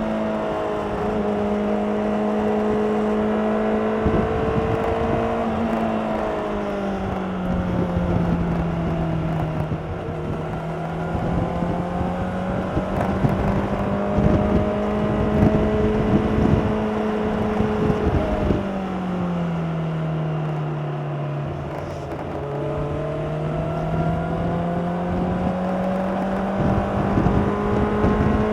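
A 2016 Honda CBR600RR's inline-four engine running through its stock exhaust while being ridden, with road and wind noise under it. The engine note holds fairly steady, drops twice (about six seconds in and again near nineteen seconds) and climbs back up each time as the bike pulls.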